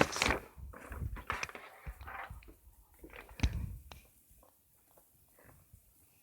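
Handling noises: a run of light knocks and clicks with some rustling, dying away after about four seconds.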